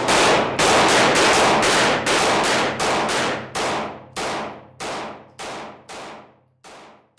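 A run of gunshots laid on as an outro sound effect, each shot ringing out after it, about three a second at first, then spacing out and growing fainter toward the end. A faint low steady tone sits underneath.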